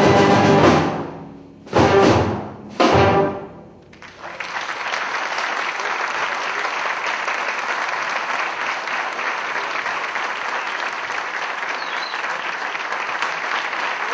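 Concert wind band ending a piece: a held full-band chord dies away, then two short accented chords about a second apart. About four seconds in, the audience breaks into steady applause.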